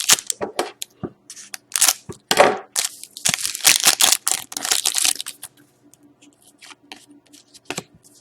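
Trading-card pack wrappers and plastic crinkling and tearing as cards are unpacked and handled: a run of short scratchy bursts for about five seconds, then fainter handling.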